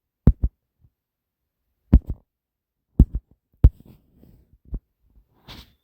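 Finger taps on a phone's touchscreen picked up through the phone's own body: short dull thumps, several of them in quick pairs. A short breathy sound comes near the end.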